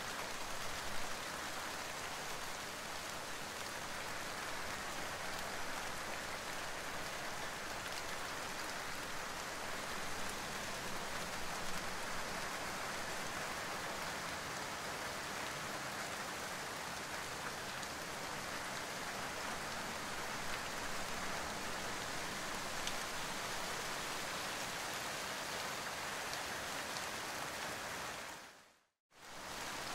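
Steady rain falling, cutting out for a moment about a second before the end.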